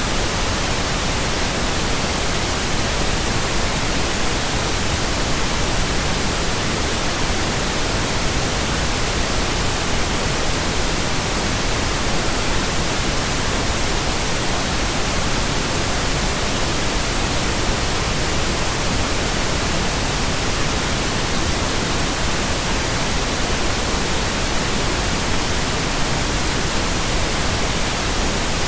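Steady pink noise: an even, unbroken hiss spread across the whole range of pitch.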